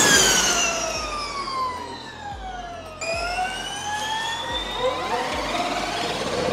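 Formula E race cars' electric drivetrain whine: a high whine that falls steadily in pitch over about three seconds, then, after a sudden cut, another car's whine rising in pitch as it speeds up.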